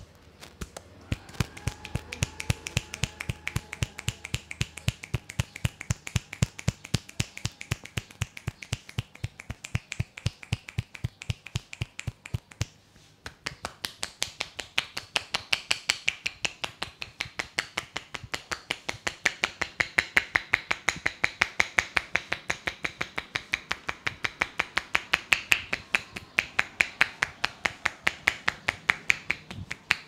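Percussive head massage: the barber's hands strike the head in a fast, steady rhythm of sharp claps, about five a second, with a short pause about halfway through.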